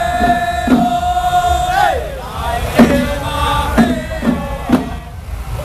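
Temple procession music: a long held, pitched tone with rich overtones that bends downward about two seconds in, over sharp percussion strikes about once a second.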